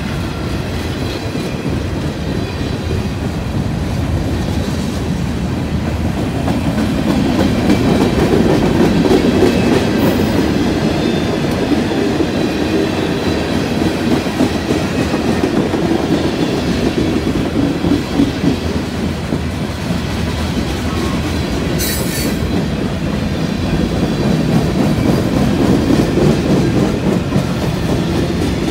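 Freight train of tank cars and boxcars rolling past, steel wheels clattering over the rail joints in a continuous rumble that swells and eases twice. A single sharp crack rings out about three-quarters of the way through.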